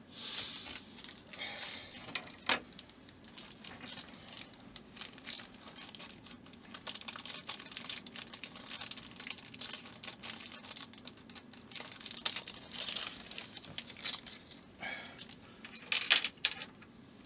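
Hands handling small plastic model-kit parts and screws: irregular clicks, taps and rustling, with a sharp click about two and a half seconds in and louder rustling near the end.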